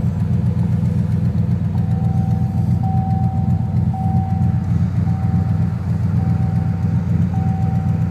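Turbocharged 1990 Ford Mustang LX engine idling steadily, with a faint high beep repeating about once a second.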